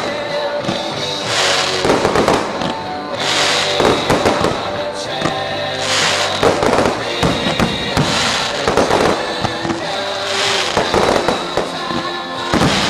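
High-altitude aerial firework shells bursting one after another with crackling, a fresh burst every second or two, over music.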